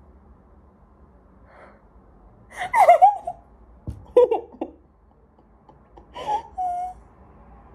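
A young woman's excited gasps and squeals, in three short bursts after a quiet first couple of seconds, made with her hands over her mouth: her reaction to good news.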